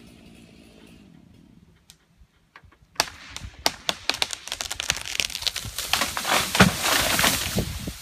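A felled tree coming down: a sharp crack about three seconds in, then a fast run of snapping and cracking wood and branches that grows louder and dies away near the end.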